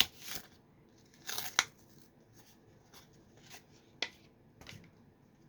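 Plastic packaging of a trading card pack being handled and torn open: scattered crinkles and clicks, loudest about a second and a half in, with a sharp click about four seconds in.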